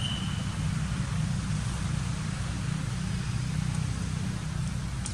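Steady low rumble with an even hiss over it: continuous outdoor background noise with no distinct events.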